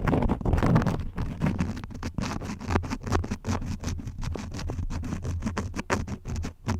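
Wax crayons scribbling close to a microphone: rapid, irregular scratchy strokes, several a second, with a low rubbing rumble beneath.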